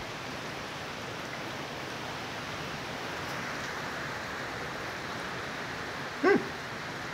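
Heavy storm rain and strong wind making a steady hiss. About six seconds in, one brief, loud, pitched cry cuts through.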